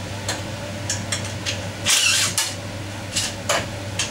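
Short metallic clinks and rattles of a cordless drill/driver and screws as the generator's alternator end cover is unscrewed. About seven brief knocks come at uneven intervals, the longest about two seconds in, over a steady low hum.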